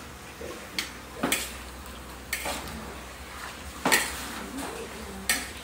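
Metal spatula and spoon scraping and clanking against an aluminium wok as diced pork is stirred, about five sharp, irregular strikes, over a faint frying sizzle.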